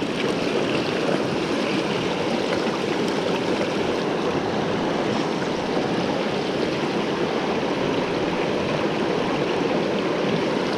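Mountain headwater stream running over rocks: a steady, even rush of flowing water.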